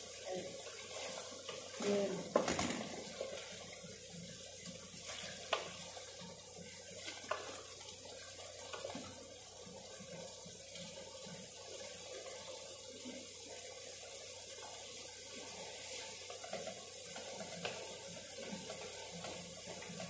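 Water running steadily from a kitchen tap into a sink, broken by a few sharp clicks and clinks in the first several seconds.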